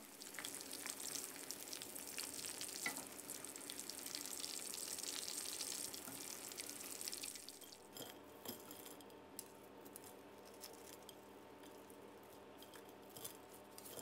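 Hot oil sizzling as coated pork pieces deep-fry with kaffir lime leaves and dried chilies until crisp. The sizzle cuts off sharply a little before eight seconds in, and faint scattered clicks follow.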